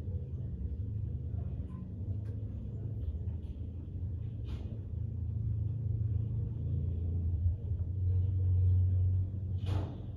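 A steady low rumble that swells about eight seconds in, with a short hiss about four and a half seconds in and another near the end.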